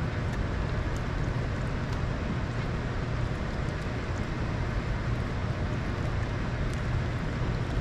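Steady low rumble of a boat motor running on the water, with a hiss of wind on the microphone.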